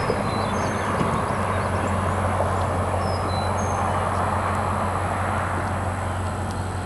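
Rural outdoor ambience: a steady low hum under an even rushing noise, with a constant high insect drone and a few short, faint bird chirps.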